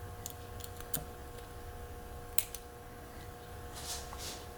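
Lock pick and tension wrench working the pin tumblers of a Brinks maximum-security padlock: several sharp metallic clicks, the loudest about two and a half seconds in, and a brief scrape of the pick near the end.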